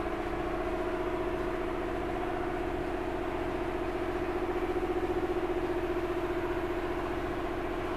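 Electric car-paint polisher running steadily with a pad on wet-sanded clear coat, a continuous motor hum with a fine rapid pulsing. It stops abruptly near the end.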